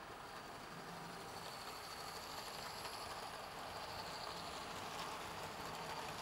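OO gauge model trains, including a Heljan Class 52 diesel, running on the layout's track: a faint, steady whir of motors and wheels on rails that slowly grows louder.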